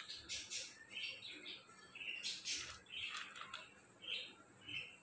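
Faint chirping of small birds: short calls repeating every half second to a second, with a few sharper, higher chirps mixed in.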